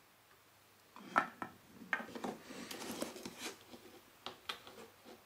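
Hard plastic parts handled and set down on a tabletop: irregular clicks, taps and clattering from about a second in, with a few sharper taps near the start and again near the end.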